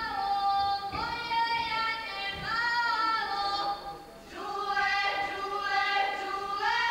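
Group of women's voices singing a Herzegovinian folk song together, unaccompanied, to accompany the dance. The notes are held long and high, in phrases with a short break about four seconds in.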